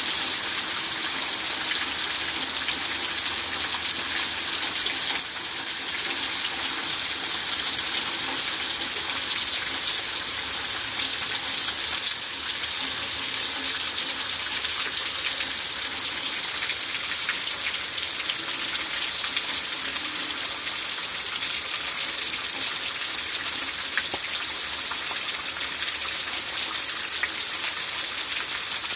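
Heavy rain falling steadily, with runoff pouring off the edge of the porch roof in streams.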